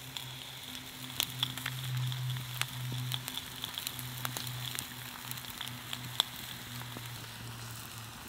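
Campfire crackling and sizzling under a trout cooking on a plank, with a handful of sharp pops, the loudest about six seconds in. A steady low hum runs underneath.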